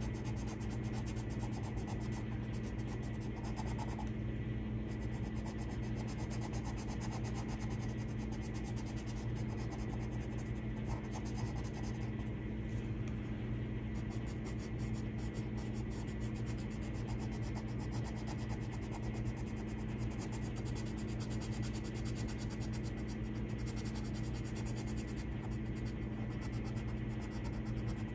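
Coloured pencil shading on paper: a soft, continuous scratching and rubbing of the lead. Under it runs a steady low hum.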